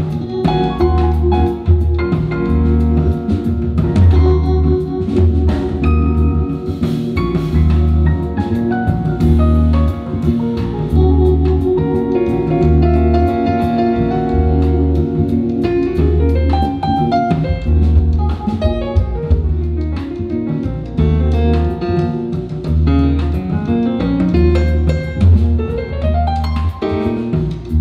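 A jazz band plays an instrumental passage. Drums keep time over a steady pulse of low bass notes, and quick rising and falling melodic runs come about halfway through and again near the end.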